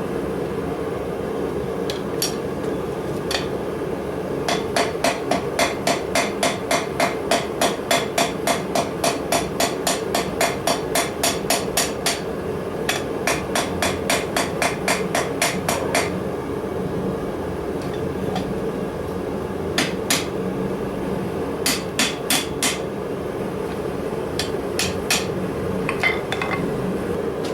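Blacksmith's hammer striking steel on an anvil, forging tongs: runs of quick ringing blows, about three a second, with pauses and a few scattered strikes near the end. A steady low hum runs underneath.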